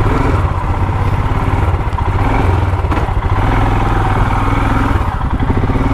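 Royal Enfield Himalayan's single-cylinder engine running steadily, with an even, rapid exhaust thump.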